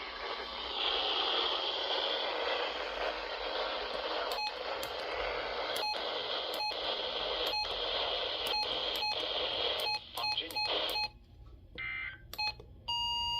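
A 2003 RadioShack 12-261 weather radio hissing with static as it is switched between weather channels. From about four seconds in, roughly ten short button beeps sound at uneven spacing. About eleven seconds in, the static cuts out, leaving a few brief tones and a short chord-like beep near the end.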